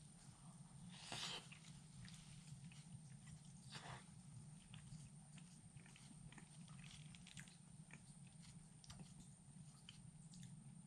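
Near silence: a faint steady low hum with a few soft clicks and quiet chewing as cobbler is eaten.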